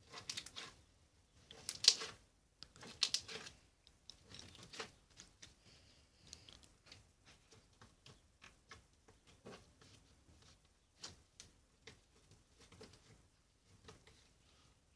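Slime being squished and handled, a run of small sticky clicks and crackles. There are louder bursts of them in the first few seconds, then fainter scattered clicks.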